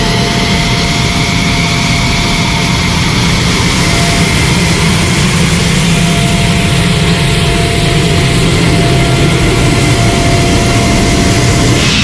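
F-16 fighter jet's engine running steadily: a deep rumble with a thin, steady whine over it.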